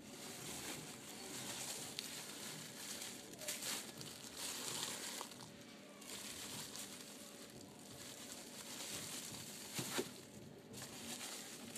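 Clear plastic wrapping around a pair of sneakers crinkling in irregular, on-and-off rustles as hands handle the wrapped shoes.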